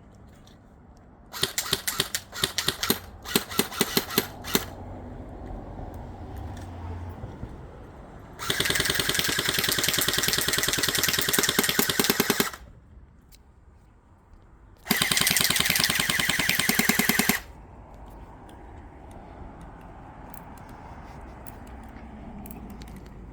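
Airsoft rifle firing: a few short bursts and single shots in the first few seconds, then two long full-auto bursts of rapid, even shots, about four seconds and then about two and a half seconds long.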